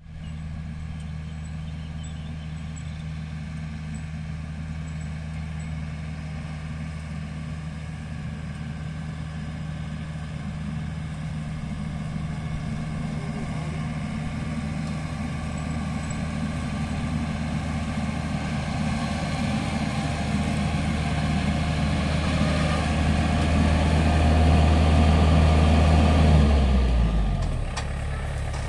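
Yanmar AW70 combine harvester's diesel engine running steadily with a deep hum, growing louder as the machine comes close. Near the end the engine note drops lower and the sound eases off.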